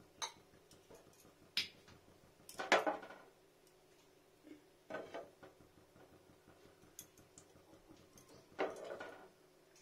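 Frying pan knocking and scraping against a gas stove's burner grate as it is lifted, tilted to spread oil and set back down: a handful of separate clatters, the loudest about three seconds in and another near the end.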